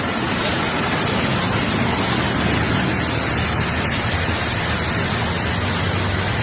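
Heavy monsoon rain and rushing floodwater: a loud, steady, even hiss with no breaks, over a faint low hum.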